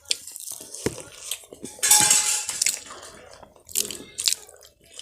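Dishes and cutlery clinking and knocking as they are handled, with a short rush of noise about two seconds in.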